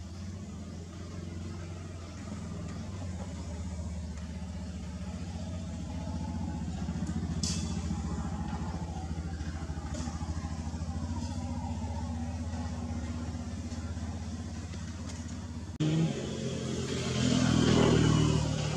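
A motor vehicle engine running steadily, slowly getting louder, and loudest near the end.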